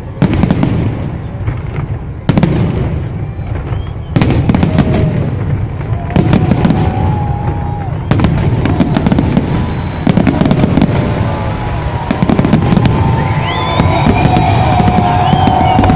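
Fireworks salute going off in volleys, a loud bang about every two seconds followed by crackling and a low rumble. Voices of the watching crowd rise near the end.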